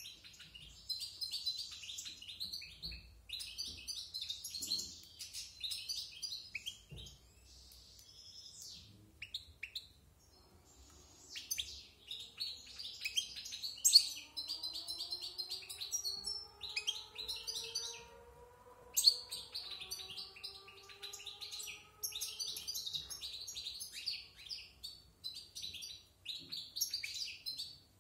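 Caged European goldfinch, about a year old, rehearsing its song: bouts of fast, varied high twittering and trills, broken by a couple of short pauses.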